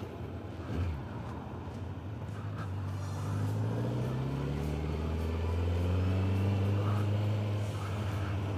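Honda CBR1100XX Blackbird's inline-four engine pulling away under riding wind rush, its pitch climbing slowly from a few seconds in, then holding steady.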